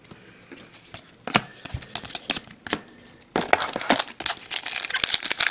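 Trading cards being handled and flicked through, with a few separate sharp clicks. About three seconds in, a dense, continuous crinkling starts as a foil card pack wrapper is handled and torn open.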